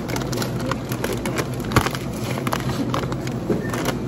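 Crinkling and rustling of a chip bag being handled, a string of small crackles with one sharper click about two seconds in, over a steady low hum of store background noise.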